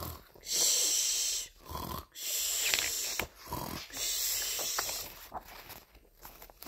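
A woman imitating snoring: three long, breathy snores, each about a second long, then fainter breathing that trails off.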